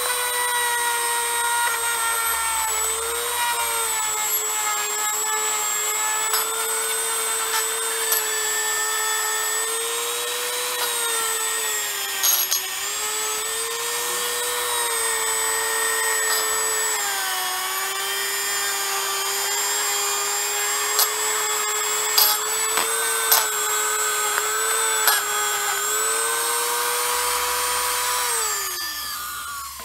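Small high-speed rotary tool spinning a little wire wheel brush inside the bearing bores of a steel U-joint yoke, scouring rust out of the snap ring grooves. A steady high whine whose pitch sags and recovers as the brush bears on the metal, with a few sharp clicks as it catches on edges, winding down near the end.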